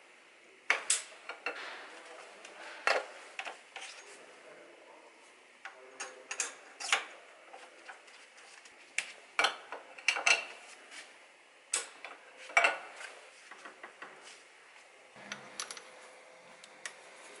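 Irregular sharp metal clicks and clinks of a flat wrench on a milling machine's collet nut and of the end mill being worked loose from the collet by hand.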